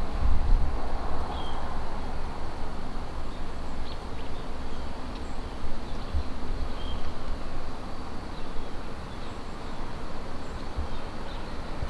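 Outdoor woodland ambience: a steady low rumble with faint, short high chirps scattered through it.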